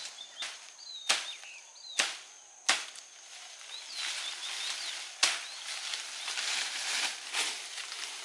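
A broad-bladed knife chopping through the base of a cinnamon stem: four sharp chops, at about one second, two seconds, just under three seconds and about five seconds, with a couple of lighter ones near the end. Leaves and branches rustle as the cut stem is moved.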